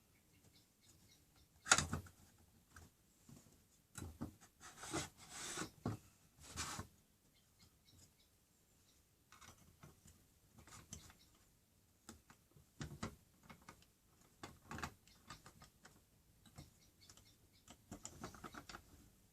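Intermittent clicks, knocks and scrapes of track-saw guide rails, their connecting bars and an Allen key being handled while the grub screws are loosened. A sharp knock comes about two seconds in and a run of scraping follows a few seconds later.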